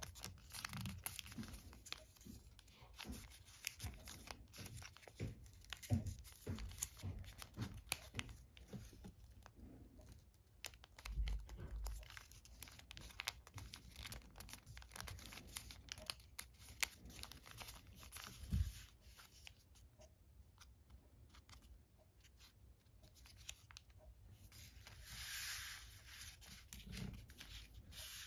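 Folded origami paper crinkling and rustling as fingers press and tuck the points of an assembled paper star, with many small crackles and taps. A longer, softer rustle comes near the end.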